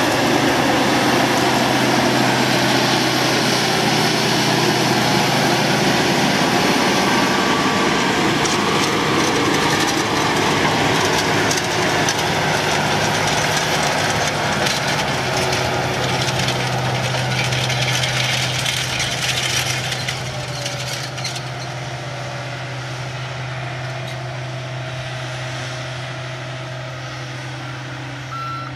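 Case IH Quadtrac 580 tractor's diesel engine running steadily with a constant low drone over a broad hiss of field work. It grows quieter about twenty seconds in.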